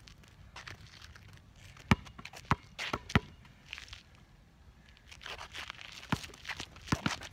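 A basketball bouncing on an asphalt court as a player dribbles: a few sharp bounces about two seconds in and a few more near the end. Between the bounces, sneakers scuff and shuffle on the asphalt.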